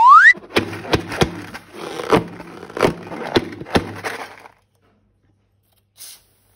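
Balloon and slime being handled: a short rubbery squeak rising in pitch, then about four seconds of sharp cracking and crackling that stops suddenly.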